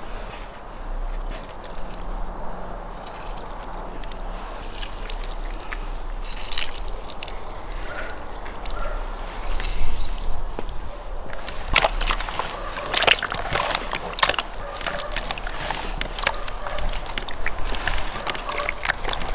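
Liquid dribbling and dripping onto sturgeon pieces in a plastic bowl. From a little past halfway, wet squelching and sloshing as bare hands mix the fish in its marinade.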